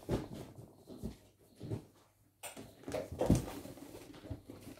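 Scattered rustling and light knocks of someone moving about at a desk and handling things as a parcel is fetched. The noise is busiest and loudest a little past the middle.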